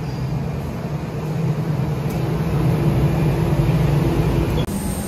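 Airport apron shuttle bus running with a steady low hum, growing a little louder midway, with an abrupt change near the end.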